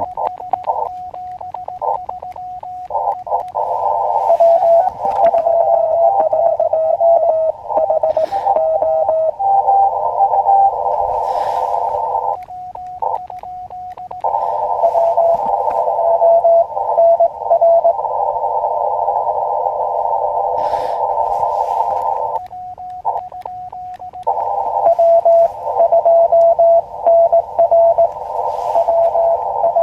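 Elecraft KX2 transceiver's CW receive audio: a narrow band of filtered band hiss with Morse code tones keyed on and off. Twice the hiss drops out behind short bursts of the radio's own keyed sidetone as the operator sends.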